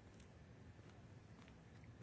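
Near silence: a faint low background rumble with a couple of faint ticks.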